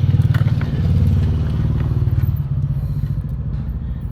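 An engine running steadily with a low, evenly pulsing rumble, with a few light clicks over it early on.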